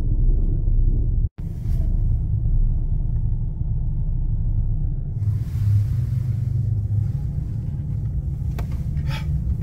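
Steady low rumble of a vehicle's engine and tyres heard from inside the cab as it creeps forward in a queue of cars. The sound drops out for an instant about a second in, and a rougher hiss joins it from about halfway through.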